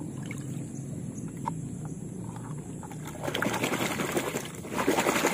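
Muddy water splashing and sloshing as a toy monster truck is swished through it by hand, with only faint small clicks before the splashing starts about three seconds in.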